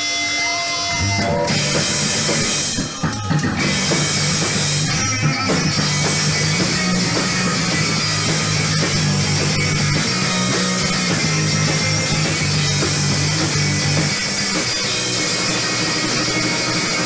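Live rock band playing loud with electric guitar, bass and drum kit. The full band kicks in about a second in, over a held guitar tone, with a short break near three seconds.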